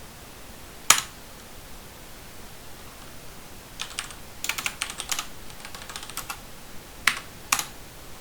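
Computer keyboard keystrokes in short, irregular runs: one sharp click about a second in, a quick flurry of taps in the middle, and two more clicks near the end.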